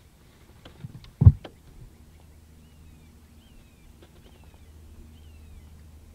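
A single heavy knock about a second in, with a few lighter knocks around it. After it, a bird calls four times, each a short falling whistle, over a faint low steady hum.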